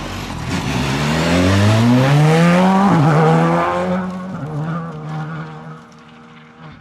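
Škoda Fabia rally car's turbocharged four-cylinder engine accelerating hard: the revs climb for about two seconds to an upshift about three seconds in, then the engine pulls steadily and fades as the car goes away, with tyre noise on loose gravel.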